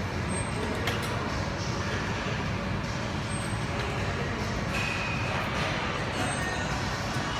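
Steady rumbling noise with a few faint clicks.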